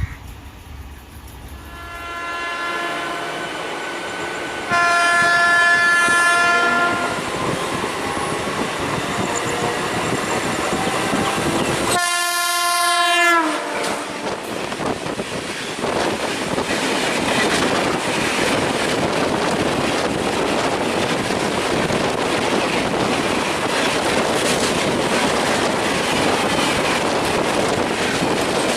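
Indian Railways express train sounding its horn in several blasts as it approaches, the last one dropping in pitch at its end, then passing at speed with a steady rush of wheels on rail and clickety-clack.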